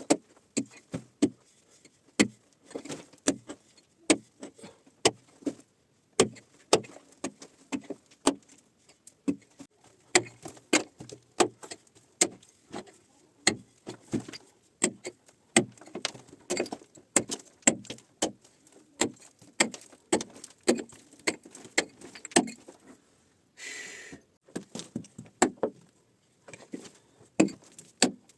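Irregular knocks and clinks of hand tools at work, two or three sharp strikes a second, with a brief scraping sound near the end.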